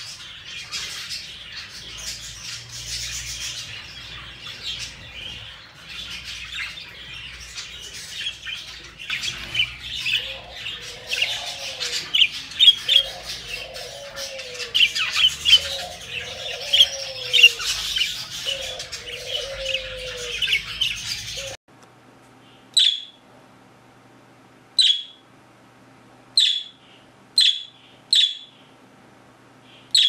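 Budgerigars chattering and warbling without a break, with sharp chirps scattered through it. About two-thirds of the way in, the chatter stops suddenly and a single budgerigar gives five short, sharp chirps a second or two apart.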